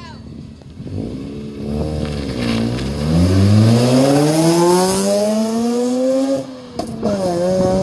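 Mazda RX-8's twin-rotor Wankel rotary engine revving hard as the car pulls away and accelerates. The pitch dips briefly, then climbs steadily for about three seconds, drops at a gear change about six and a half seconds in, and climbs again.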